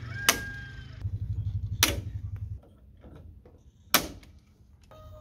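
Hand pop-rivet gun fastening a rain gutter: three sharp snaps, each one a rivet's mandrel breaking off, roughly two seconds apart.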